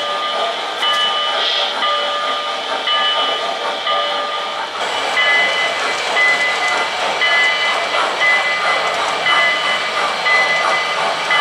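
O-gauge three-rail model train running on the layout track: a steady rumble and hiss of wheels and motor, with short high tones repeating about once a second. The sound changes abruptly about five seconds in.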